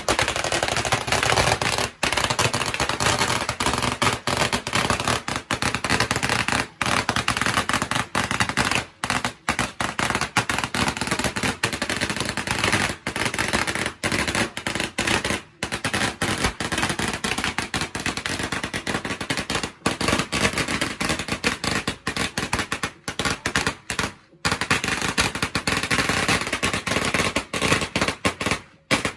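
A long string of firecrackers going off in a rapid, continuous crackle of bangs, with a few brief breaks.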